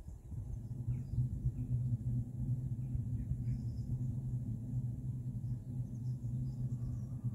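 A low, steady rumble sets in at the start and holds, with a few faint high chirps, like small birds, above it.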